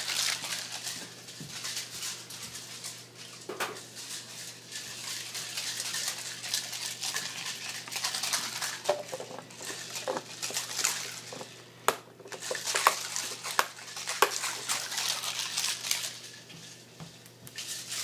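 Ice Cream Magic toy ice cream maker shaken hard by hand: ice and salt rattle and clatter inside the plastic ball, with sharp clinks among the steady shaking noise, as the cream mixture is churned and frozen. The shaking eases off near the end.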